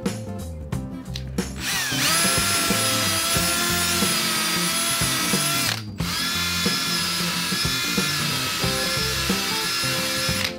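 Cordless drill motor running at a steady high whine as it bores into the timber of a laminated keel. It runs in two long stretches: it starts about two seconds in, stops briefly near six seconds, then runs again to the end. Background music plays underneath.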